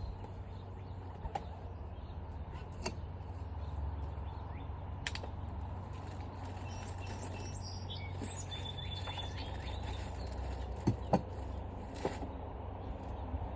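Birds chirping over a steady low background hum, with a few sharp clicks and taps, the loudest pair about eleven seconds in.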